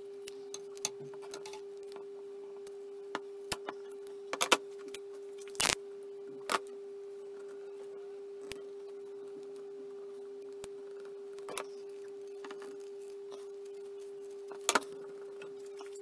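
Scattered small clicks and taps of hands handling a graphite tennis racket frame while pressing vinyl wrap onto it, irregular, with a few louder knocks through the middle and near the end. A steady faint hum lies under it.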